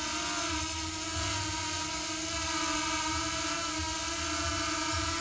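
DJI quadcopter drone's propellers whirring steadily as it hovers just after takeoff, an even, high-pitched hum.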